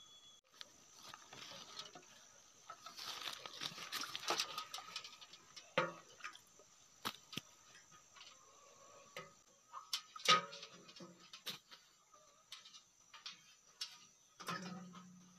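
Freshly caught fish flopping on dry grass and leaves: irregular slaps and rustling with a few sharper thumps, the loudest about ten seconds in. A steady high insect drone runs underneath.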